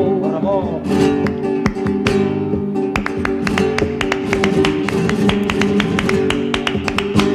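Flamenco music: a sung note trails off at the start, then acoustic guitar strumming carries on with a fast run of sharp percussive strikes over it.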